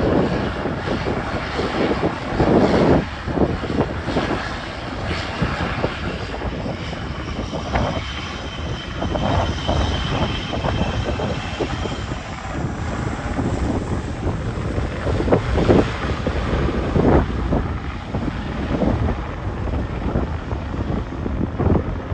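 Airliner engines running, with a high whine that holds for several seconds and then fades, under gusts of wind buffeting the microphone.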